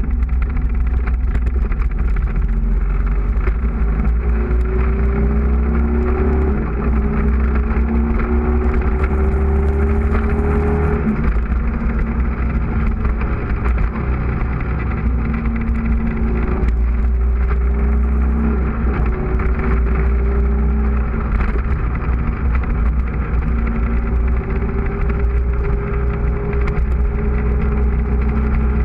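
Motorcycle engine under hard acceleration, its note climbing in pitch through each gear and dropping at the shift, several times over, with a heavy rush of wind on the onboard microphone.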